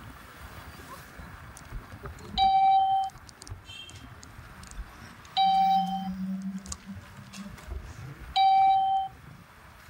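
An electronic beep tone sounds three times at an even three-second spacing. Each beep is a steady, single-pitched tone lasting a little over half a second, over low road noise.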